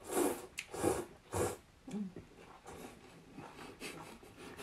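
A person slurping rice noodles, three quick noisy slurps in the first second and a half, followed by a short hummed "mm" about two seconds in.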